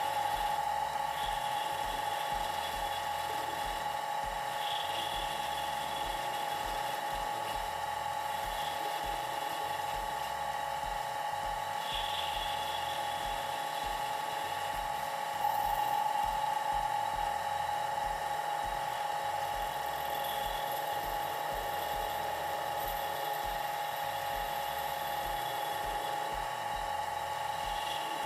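Watchmaker's lathe spinning with a steady high whine while a hand graver turns down the tip of a 1.8 mm rod to 1.4 mm. The whine grows slightly louder about halfway through.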